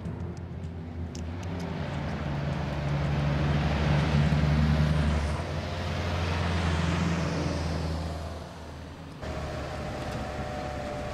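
Motor vehicles driving past on a road, their engine and tyre noise swelling to a peak about four seconds in, rising again about seven seconds in, then fading. About nine seconds in it cuts to the steady running of a pickup heard from inside its cab.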